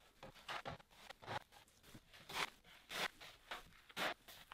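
Wide filling knife spreading Easy Fill filler over a plaster wall: faint, short scraping strokes at an irregular pace, some in quick succession.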